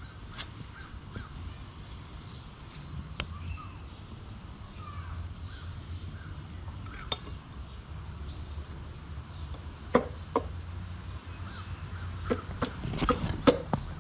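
Scattered sharp clicks and knocks of tools and metal engine parts being handled during scooter engine assembly, with two louder knocks about ten seconds in and a quick run of clicks near the end, over a steady low hum.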